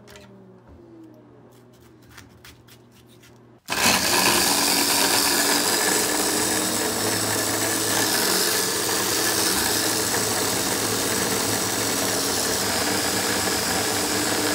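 Electric Oster mini chopper starting abruptly a few seconds in and running steadily at full speed, pureeing tomatoes into a sauce. It is preceded by a few faint knocks.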